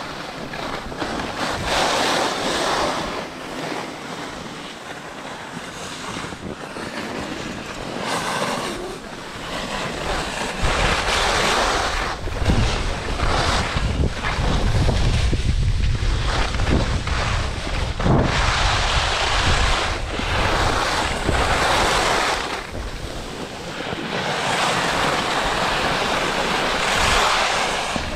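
Skis hissing and scraping over packed snow in surges every couple of seconds as the skier turns, with wind buffeting the microphone; a heavier low wind rumble joins about a third of the way in.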